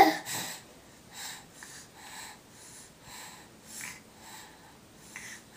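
A young child's quick, noisy breaths and sniffles, about two a second, the catching of breath right after crying.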